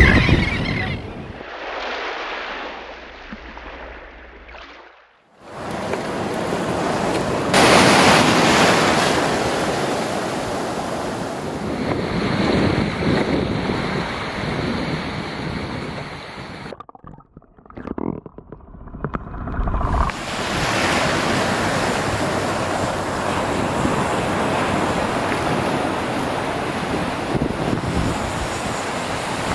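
Ocean surf washing ashore, with wind buffeting the microphone. The sound drops out briefly twice, once near 5 seconds in and again for a couple of seconds past the middle.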